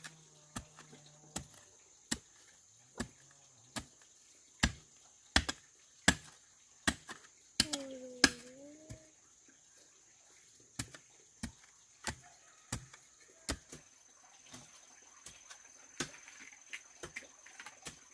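Repeated chopping strikes of a hand tool, a sharp blow about every three-quarters of a second, becoming softer and more irregular after about 14 seconds. A short gliding call is heard briefly about 8 seconds in.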